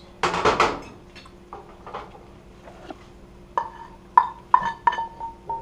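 Cooked mushrooms tipped into an omelette pan with a short scraping rustle, then five or six sharp taps of a utensil on cookware near the end, each ringing on a clear metallic tone, as the last bits are knocked off.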